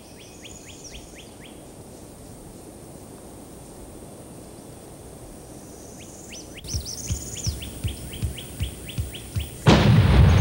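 A small songbird singing quick runs of chirps near the start and again past the middle, with soft repeated low thumps. Then, near the end, a single shotgun blast fired at a gobbler, much the loudest sound, followed by a lingering rumble.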